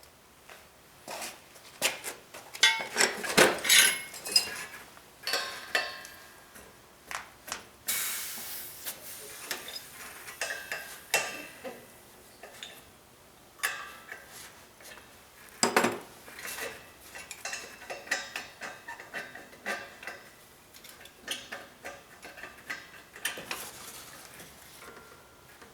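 Hard objects being handled: irregular clinks, knocks and clatter. There is a short hiss about eight seconds in.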